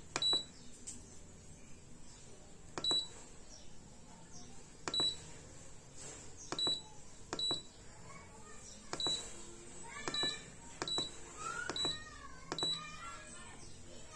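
Control-panel beeps of a Maximus MAX-005V tabletop dishwasher: a short, high beep with each press of the program button as it steps through the wash programs. There are about ten beeps, irregularly spaced and coming faster in the second half.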